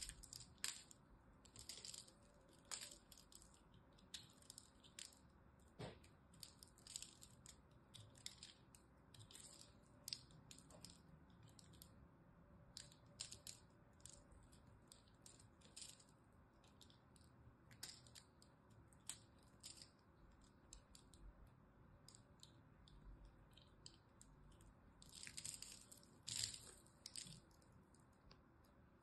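Craft-knife blade shaving crumbly, starch-coated dried soap: irregular crisp, scratchy crunches as flakes break away, with a busier run of crunches near the end.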